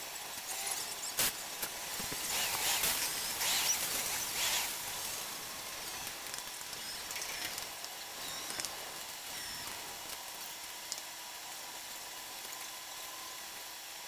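Outdoor work-site noise during concrete finishing: a sharp click about a second in, then intermittent scraping and rasping for a few seconds. It settles into a quieter steady background with a faint hum.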